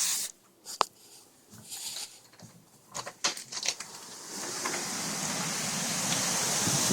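A sharp click and a few knocks, then from about four seconds in a steady rushing noise of hurricane wind that grows louder.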